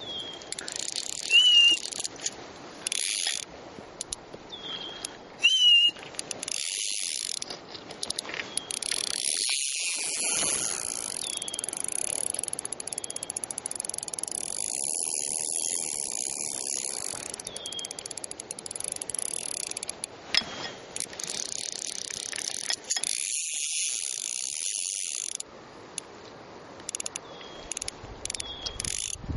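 Fly reel's click-and-pawl drag ratcheting in fast runs of clicks as line moves through it, the longest run lasting about ten seconds in the middle.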